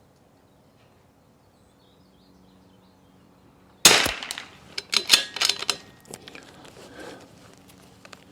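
A single .22 LR rimfire rifle shot about four seconds in, a sharp crack with a short ringing tail, followed by a quick run of metallic clicks and rattles.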